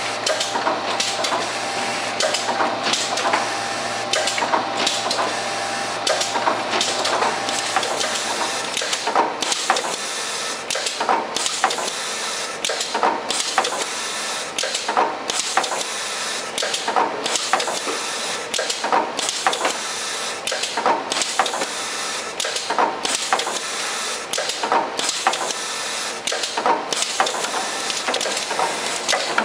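Automatic syringe labeling machine running: a steady mechanical clatter from the conveyor and labeling head, with a sharp clack about every two seconds. A low steady hum cuts out about a third of the way in.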